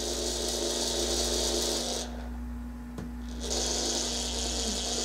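DCC Concepts Cobalt IP digital point motor whirring as its geared motor drives the throw arm across. It stops about two seconds in, then runs again for about three seconds as the switch is thrown back.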